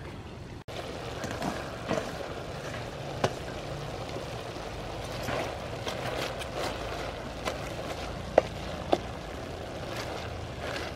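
Water spinach being stirred with a wooden spoon in a metal pot of hot broth: a steady rustling hiss, with a few sharp knocks of the spoon against the pot, the loudest about eight seconds in.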